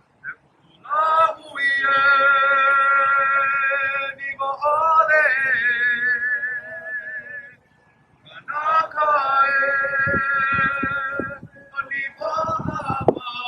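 A man chanting in long, held notes with a wavering vibrato, in several phrases separated by short breaths. A few low thumps come near the end.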